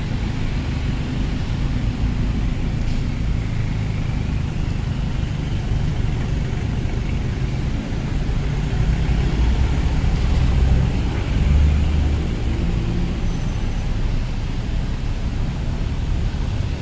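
Street traffic: vehicle engines running and passing on the road as a steady low rumble, which swells briefly about two-thirds of the way through.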